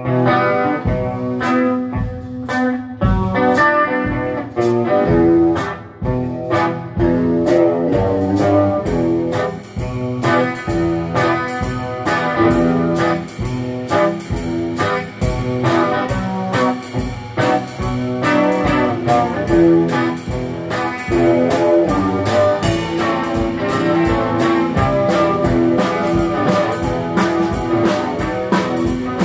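Gretsch hollowbody electric guitar and a drum kit playing a song together: guitar chords and lines over a steady beat on drums and cymbals.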